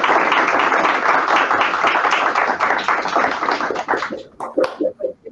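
A small group applauding: dense clapping that thins out to a few scattered claps and stops about five seconds in.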